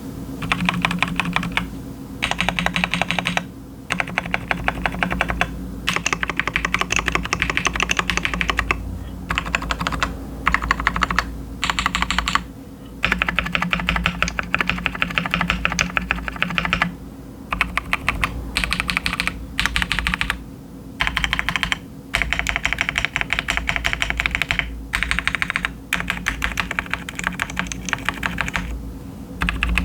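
Typing on a KiiBOOM Phantom 81, a gasket-mounted clear acrylic mechanical keyboard fitted with KiiBOOM Crystal switches and crystal keycaps. The keystrokes come in quick runs of one to three seconds with short pauses between them.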